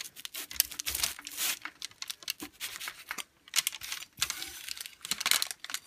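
Crisp, flaky puff-pastry crust of a freshly baked galette des rois crackling and crunching as a large knife saws through it, in quick irregular crackles.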